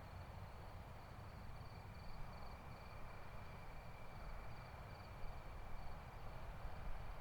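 Faint crickets chirping in a steady, high, pulsing trill over a low rumble.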